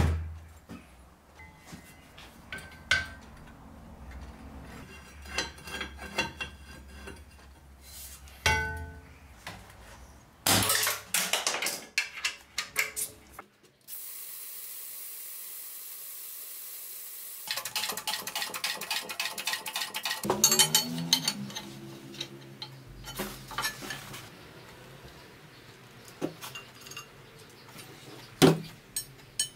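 Metalworking shop sounds: repeated clinks and knocks of steel parts and tools being handled and set down, with a few seconds of steady hiss around the middle.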